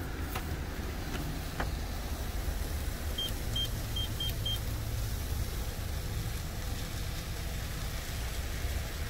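Five short beeps from a car wash pay station's keypad as a five-digit code is keyed in, over the steady low rumble of the car idling.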